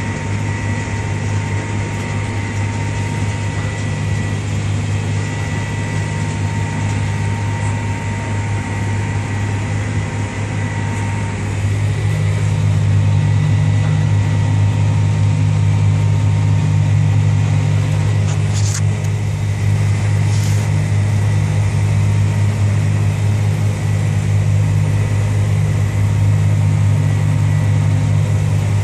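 Tractor engine and sugar beet harvester running together, a steady low drone heard from inside the cab that grows louder about twelve seconds in. A faint high steady tone runs alongside it for the first ten seconds or so.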